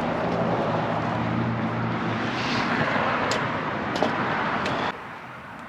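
Steady vehicle engine noise, a low hum under a broad rumble, with a few light clicks; it cuts off suddenly about five seconds in.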